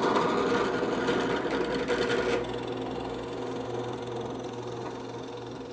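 Drill press running and boring a three-quarter-inch through hole in a maple board, with a steady motor hum under the noise of the bit cutting. About two and a half seconds in, the cutting noise stops and the press keeps running more quietly, slowly fading.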